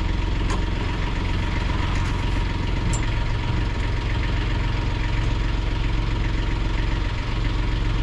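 A sailboat's new Beta Marine diesel inboard engine idling steadily, with no throttle applied.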